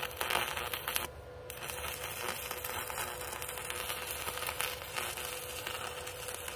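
Stick (arc) welding with a Power Fist 110 inverter arc welder: the arc crackles and sizzles steadily, with a brief break about a second in before it restrikes.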